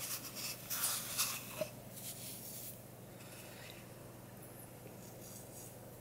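Faint scraping and rustling for the first two and a half seconds or so as salt and pepper are spooned from a bamboo salt box into an immersion-blender beaker. Under it runs a low steady hum from a washing machine going in the background.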